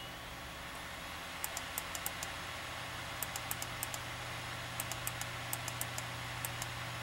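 Laptop keyboard keys clicking in short quick runs, three bursts of light taps, over a steady low hum.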